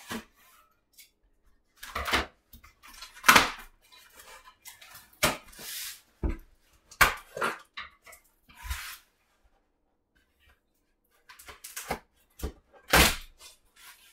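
A cardboard shipping box being cut and pulled open by hand, with a series of short sharp knocks and brief tearing and rustling of cardboard and tape. Dogs bark in the background.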